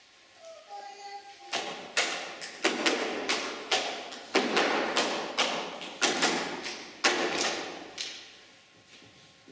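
A string of irregular heavy thuds on the stage floor, roughly two a second, each ringing out in the hall. They start about a second and a half in and die away near the end.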